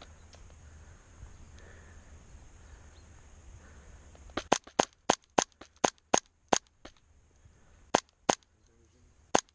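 Airsoft gun firing single shots in quick succession: a rapid string of about ten sharp cracks about four and a half seconds in, then two more and a final one near the end. Before the shots, a low rustle of movement.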